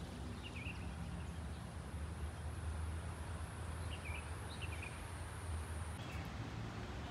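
Outdoor ambience: a steady low rumble with a few short bird chirps scattered through it, and a thin high steady hiss that cuts off about six seconds in.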